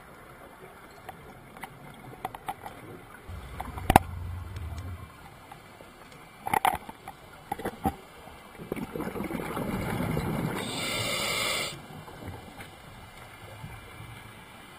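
Muffled underwater sound of a scuba diver's breathing: a few sharp knocks and clicks of gear, then about nine seconds in a rush of exhaled regulator bubbles lasting about three seconds that cuts off suddenly.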